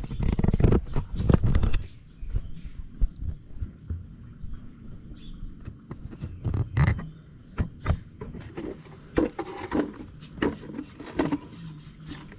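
Knife blade scraping over a slaughtered piglet's wet skin in short, irregular strokes. A loud, muffled rumble with knocks fills the first two seconds.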